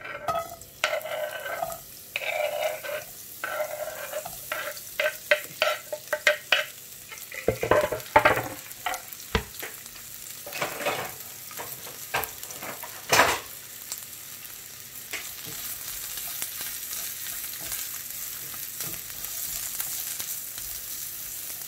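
Chopped onion and garlic sautéing in olive oil in a nonstick frying pan. Scrapes and clatter come first as the pieces are tipped in from a wooden board, then a run of sharp knocks as they are stirred with a wooden spatula. After that a steady sizzle fills the rest.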